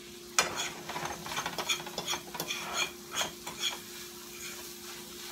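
Metal fork scraping and clicking irregularly against a frying pan as sautéed flaked salmon with peppers and onions is stirred. The strokes start about half a second in and thin out over the last second or so.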